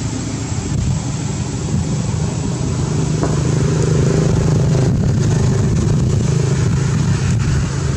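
A motor vehicle engine running steadily, a low hum that grows louder about three seconds in.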